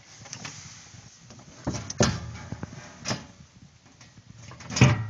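Knocks and bangs of metal inside a Valmet Jehu forestry tractor's cab, with rattling between them: a pair of sharp knocks about two seconds in, one at about three seconds and a loud one near the end.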